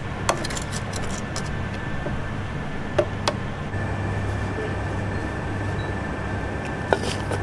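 Steady low machine hum of kitchen equipment, a little stronger about halfway through, with a few sharp clicks. The first click, just after the start, comes as steel tongs toss sauced chicken in a wire fryer basket.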